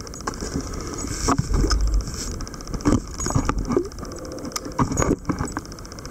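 A scuba diver jumping off a small dive boat into choppy sea: a heavy splash about a second and a half in, amid irregular knocks on the boat and water sloshing against the hull.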